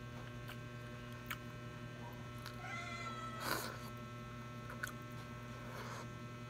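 Mouth and finger sounds of eating rice by hand: a few small clicks and a wet smack about three and a half seconds in, over a steady electrical hum. A brief high rising call is heard about two and a half seconds in.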